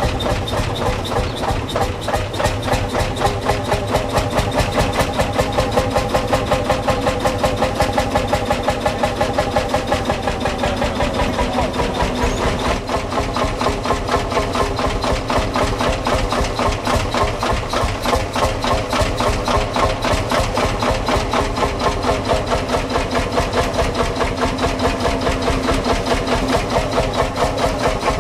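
Old farm tractor engine running steadily at a low speed, with an even, fast pulsing beat; its note shifts slightly about halfway through.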